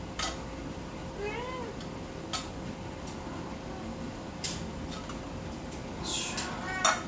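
A house cat meows once, a short arching call about a second in. Sharp clicks and knocks from tin cans being handled over a pan come and go, with a louder scraping burst near the end.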